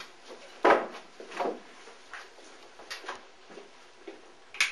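A few knocks and clunks of objects being handled in a small room: a loud knock about three-quarters of a second in, a softer one shortly after, a few light ticks, and another sharp knock near the end.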